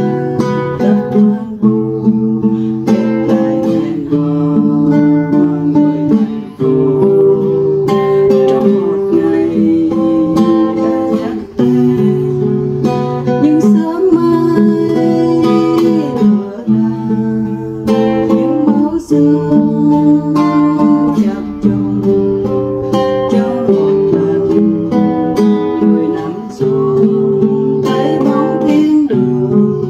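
A woman singing a Vietnamese ballad, accompanying herself on a nylon-string classical guitar with steady plucked and strummed chords.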